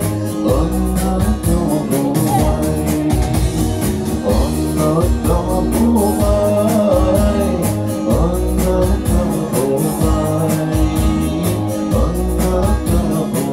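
A man singing a retro song over a backing track with a steady beat.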